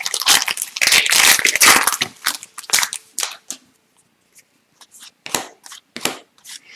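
Foil trading-card pack wrapper crinkling and tearing as a hockey card pack is opened and handled, for about three seconds, then scattered lighter clicks and slides as the cards are handled.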